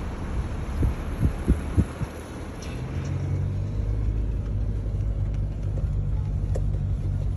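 A car driving on beach sand: a low rumble with a few low thumps in the first two seconds, settling into a steady low engine drone about three seconds in.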